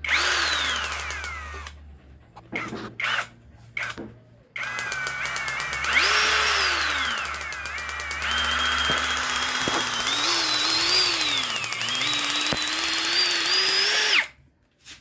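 Handheld electric drill run in bursts, its motor whine rising and falling in pitch as the trigger is squeezed and eased. After a few short spurts it runs for a long stretch at varying speed, then cuts off suddenly near the end.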